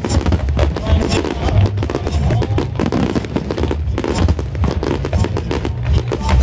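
Aerial fireworks shells bursting in a dense barrage of many quick bangs and crackles, over loud accompanying music with a heavy bass.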